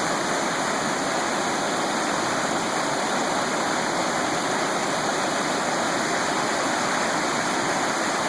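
Storm runoff floodwater rushing steadily, an even, unbroken rush of fast-moving water from flooding after tropical-storm rain.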